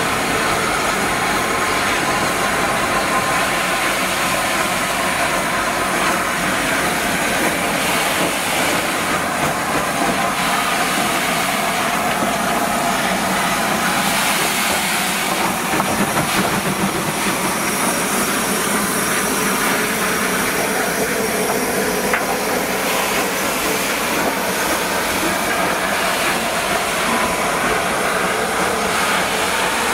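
Rebuilt Merchant Navy class steam locomotive 35028 Clan Line pulling slowly away with its Pullman coaches: steady hiss of steam and the clatter of wheels on the rails.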